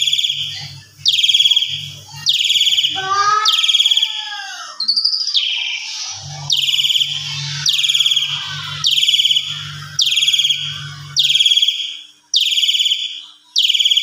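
Asian pied starling (jalak suren) in full, agitated song: a loud harsh note repeated about once a second, each falling in pitch. A few seconds in, the run breaks for a varied phrase of lower falling whistles and a short rising note.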